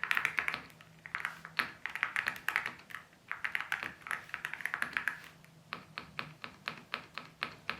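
Typing on a new clear keyboard: a rapid, irregular stream of keystroke clicks in bursts, with short pauses between them.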